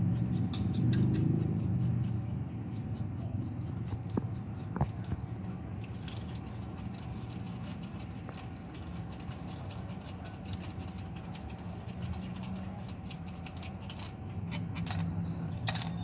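Hands working the loosened flywheel mounting bolts at the hub: scattered light metallic clicks and scrapes, over a steady low hum.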